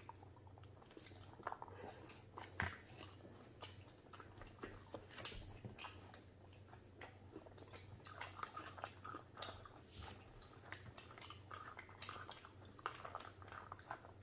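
Faint chewing and mouth sounds of two people eating spiced boiled chickpeas, with scattered light clicks of spoons against plastic bowls.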